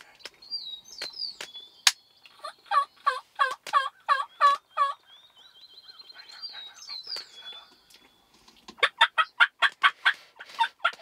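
Turkey yelping: a run of about nine evenly spaced yelps, each dropping in pitch. Near the end comes a faster, louder string of calls, and a high thin trill sounds in between.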